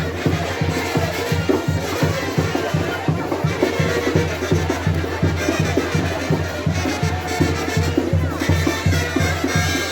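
Live band music with a fast, steady beat.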